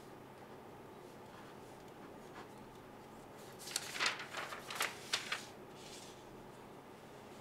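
A pen scratching across paper, with papers rustling on a desk: a handful of quick strokes about halfway through, over faint room tone.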